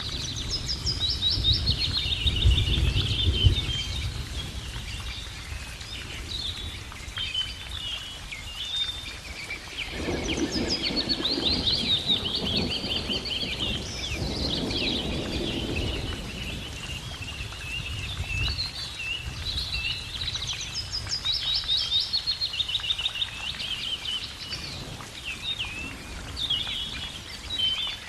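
Wild birds singing: quick repeated chirps and trills overlapping throughout. A low rumble runs under them for a few seconds near the start, and a stretch of rushing noise comes in around the middle.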